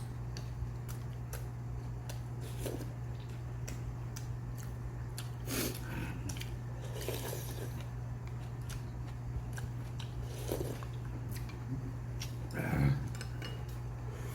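Someone eating at a table: chewing, with short clicks and knocks of utensils against bowls scattered through, the loudest one near the end. A steady low hum runs underneath.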